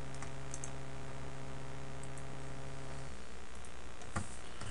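A few scattered, faint computer mouse and keyboard clicks over a steady low electrical hum, which cuts off suddenly about three seconds in.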